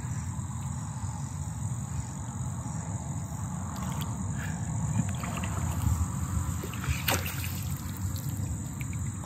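Water swishing and splashing as a landing net is worked inside a submerged plastic drum, with a sharp splash about seven seconds in as the net is scooped out of the water. A steady chorus of crickets runs underneath.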